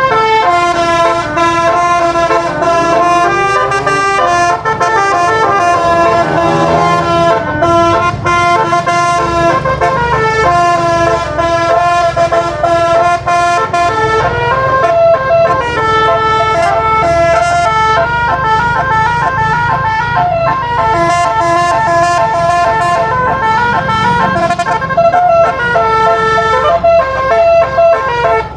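Basuri telolet bus air horn, a 12-note set of trumpets driven from a MIDI file, playing a song melody note by note with a few sliding pitch glides, over a steady low rumble.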